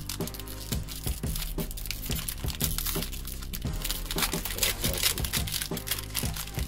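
Foil booster-pack wrapper crinkling and tearing as a pack is handled and opened, in many quick irregular crackles, over background music.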